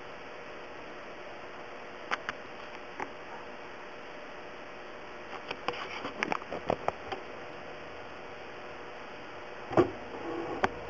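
Steady low room hiss broken by scattered light clicks and taps: a couple about two and three seconds in, a quick cluster about six seconds in, and a sharper knock near the end.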